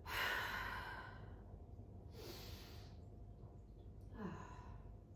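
A woman's long, audible sighing exhale as she relaxes out of a yoga stretch, followed by two shorter breaths, the last about four seconds in with a slight falling hum of voice.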